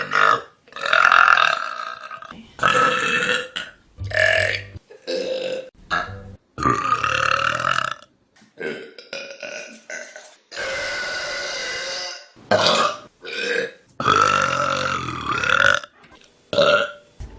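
A rapid series of loud human burps, about a dozen in a row, some short and some long and drawn out, with brief gaps between them.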